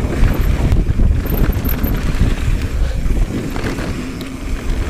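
Wind rushing over the microphone of a mountain bike at speed on a dirt trail, with a steady low tyre rumble and many short knocks and rattles from the bike over the ground.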